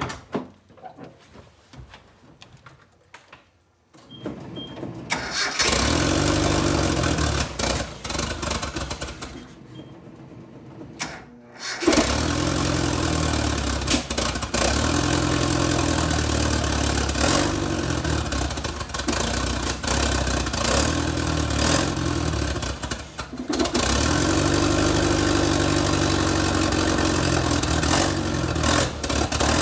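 Nissan Z24 four-cylinder engine with a freshly fitted cheap eBay turbo, cranked and started about four seconds in. It falters and falls away, catches again about twelve seconds in and keeps running poorly, with a brief dip near the end.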